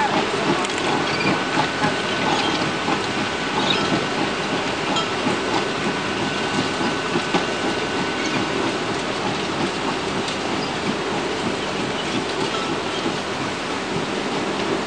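A 700 mm gauge O&K 0-6-0 fireless steam locomotive hauling a train of loaded sugar-cane wagons past. The wheels and wagons make a steady rolling noise with clicks over the rail joints, and a faint thin squeal is held for several seconds in the first half.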